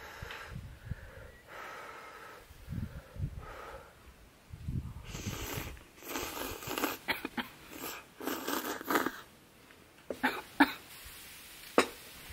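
A person slurping and chewing spicy instant ramen noodles in short, held-back slurps. Near the end come a few sharp clinks of ice in a glass.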